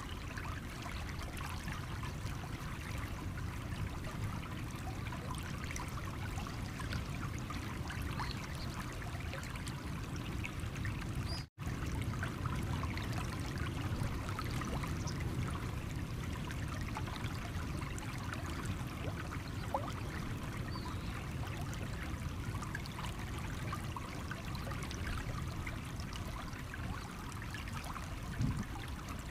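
Stream water running over stones: a steady trickling flow with many small splashes and drips. The sound cuts out for a split second about eleven and a half seconds in.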